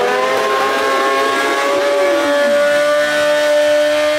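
Honda CBR sport bike engine held at high revs for a burnout, its note steady and creeping slightly higher. A second engine's revs fall away about two seconds in.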